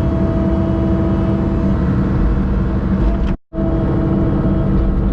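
Caterpillar mini excavator's diesel engine running steadily. All sound drops out for a split second about three and a half seconds in.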